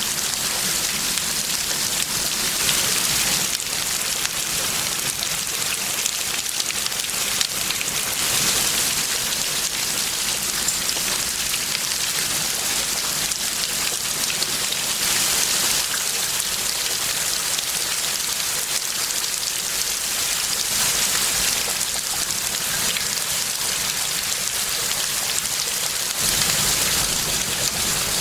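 Heavy thunderstorm rain pouring down steadily and hissing on the ground, swelling louder several times as it falls.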